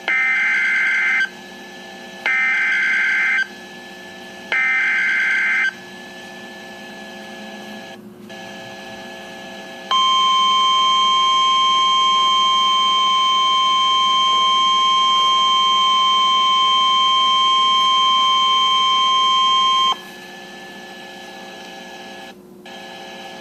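NOAA Weather Radio Emergency Alert System (EAS) alert. It opens with three short, screechy bursts of the SAME digital data header, each about a second long with a pause between. About ten seconds in comes the 1050 Hz warning alert tone, held steady for ten seconds, which marks a warning-level alert, here a severe thunderstorm warning. Faint radio background hiss fills the gaps and the last few seconds.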